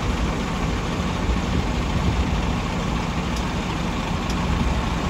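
Heavy diesel engine idling steadily with a low rumble.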